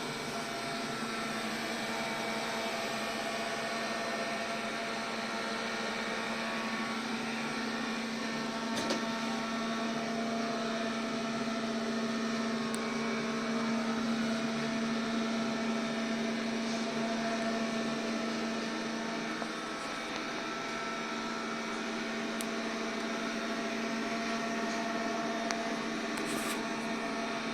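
MOVA robot vacuum cleaner running: a steady motor hum with a constant low tone and a fainter whine above it, and a faint click about nine seconds in.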